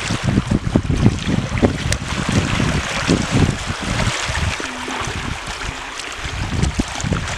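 Small waves lapping on the dam's reservoir water, under heavy wind buffeting the microphone. The wind gusts ease for a couple of seconds about four seconds in, then pick up again.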